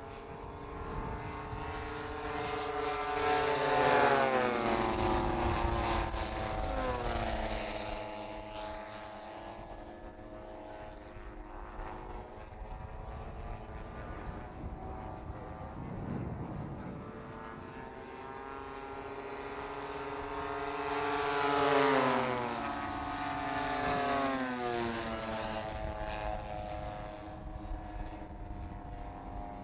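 Propeller engines of large-scale radio-controlled WWII fighter models flying past overhead. The engine note swells twice, about four seconds in and again past twenty seconds, dropping in pitch as each pass goes by, with a fainter engine drone between the passes.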